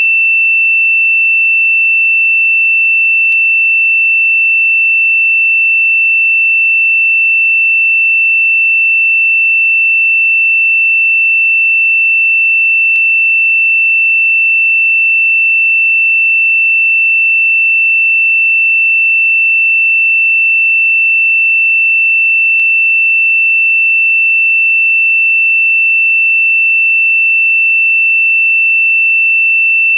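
A single steady, high-pitched pure electronic tone, held at one pitch without pulsing or change: a synthesized meditation 'frequency' tone.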